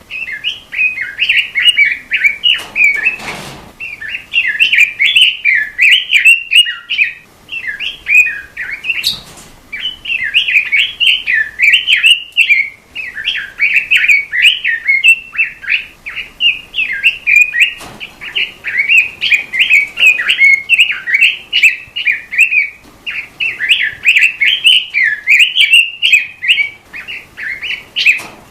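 A songbird sold as a 'robin' in Indonesian bird-keeping singing a long, rapid warbling song of quick, varied high notes with only a few short breaks.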